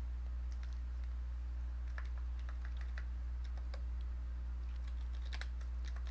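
Computer keyboard keys clicking in short, scattered runs as code is edited, over a steady low electrical hum.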